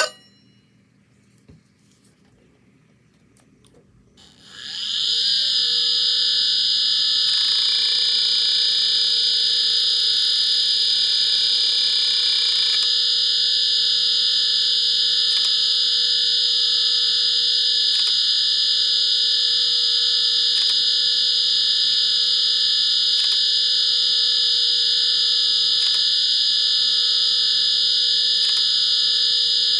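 A 1995 Samsung Apollo SHD-30280A hard drive, cover off, spins up about four seconds in with a rising whine. It then runs with a loud, steady high-pitched whine. A harsher buzz sits on top for about five seconds and then drops away, followed by faint ticks every couple of seconds. This is a failing drive that no longer reads any sectors. There is a sharp click at the very start.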